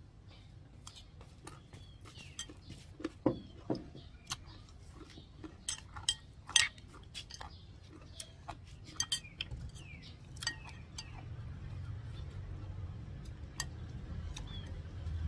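Metal spoon clinking and scraping against a ceramic bowl in scattered sharp clicks, the loudest about six and a half seconds in.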